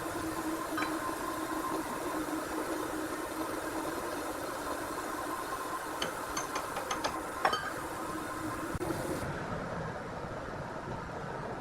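Sawmill machinery running with a steady hum, with a handful of short sharp clicks and knocks around six to seven and a half seconds in.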